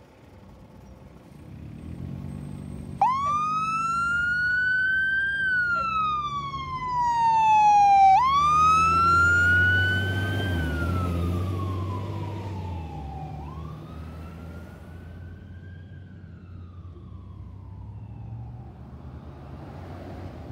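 Fire engine's siren wailing as the truck pulls out. It starts about three seconds in and sweeps up quickly and down slowly three times, fading on the last sweep as it drives off. The truck's diesel engine is heard under it, loudest as it passes about eight to eleven seconds in.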